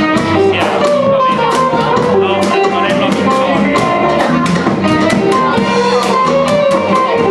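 Live blues band playing an instrumental passage, with electric guitar, bass guitar and drums keeping a steady beat.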